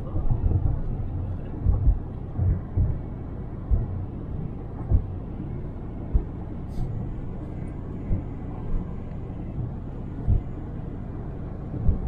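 Road noise inside a moving car's cabin: a steady low rumble of tyres and engine, broken by irregular low thumps. There is one brief sharp click about two-thirds of the way through.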